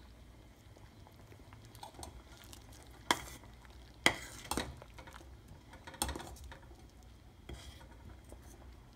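A spoon stirring thick gravy in a stainless steel saucepan, with a few sharp knocks of the spoon against the pot, the loudest about three and four seconds in.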